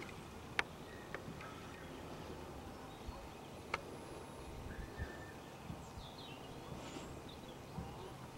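Open-field ambience: low wind rumble on the microphone with faint, scattered bird chirps, broken by two sharp clicks, one about half a second in and one nearly four seconds in.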